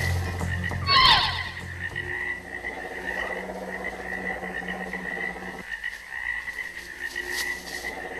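Forest ambience: a steady, pulsing high trill of calling animals runs throughout. About a second in a short, sharp falling cry stands out as the loudest sound, and soft low background music fades out around two seconds in.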